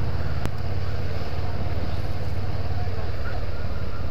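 Motorcycle engine running steadily as the bike rides along, with a low, even hum and wind rush on the bike-mounted microphone.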